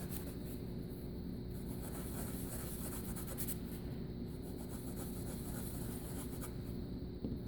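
Faint scratchy ticks and light rubbing from nail-art stamping tools working against a metal stamping plate, busiest in the first second or so, over a steady faint hum.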